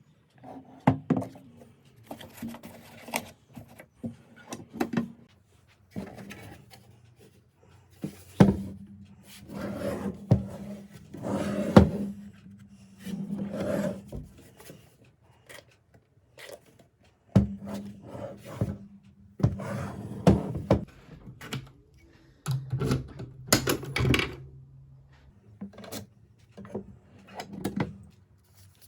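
Handling noises from a small pistol safe: rubbing and scraping with many sharp clicks and knocks, some close together, with short pauses between. A low steady hum comes and goes in three stretches.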